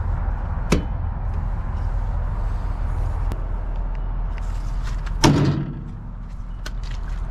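A sharp click about a second in, then a loud slam with a short metallic ring about five seconds in as a sheet-metal access door on a Cat 938 wheel loader is shut. A steady low rumble runs underneath.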